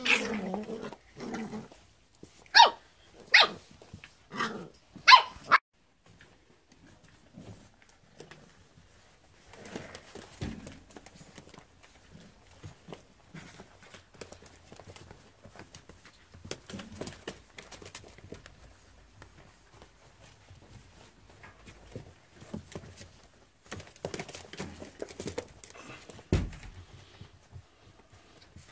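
Eight-week-old puppies play-fighting, with a quick run of sharp, high yaps in the first few seconds. Then quieter scuffling and scattered small sounds from the tussling, with a few more yaps late on.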